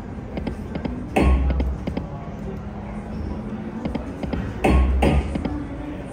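Huff N' More Puff video slot machine sound effects over its background music. Two spins, each opening with a loud low thump and a downward-sweeping swoop, one about a second in and one near five seconds. Light ticking comes between them as the reels stop.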